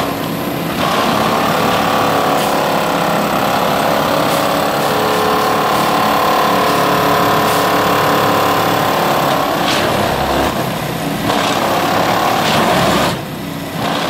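Heavy railway track-maintenance machine at work: its diesel engine runs steadily under a rattling, clattering mechanical noise with occasional knocks. The sound dips briefly about a second before the end.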